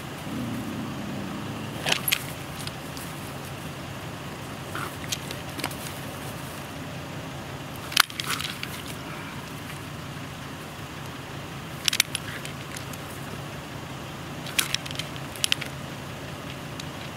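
Sharp metallic rattles and clicks from the foothold trap's chain and the catch-pole cable as the trapped coyote is snared around the neck and pulls against them, loudest about 8 and 12 seconds in, with a few more near the end. A steady low engine hum runs underneath.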